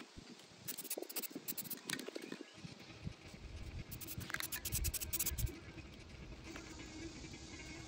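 Aerosol spray paint can hissing in several short bursts, the longest a little past the middle, as small metal hardware pieces are coated, with light scraping of cardboard as they are shifted by hand.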